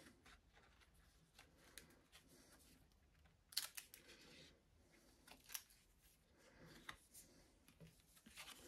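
Faint rustling and light tapping of paper and card as photocards and printed inserts are slid out of an album's paper sleeve and handled. There is a sharper click about three and a half seconds in, and a few softer ones later.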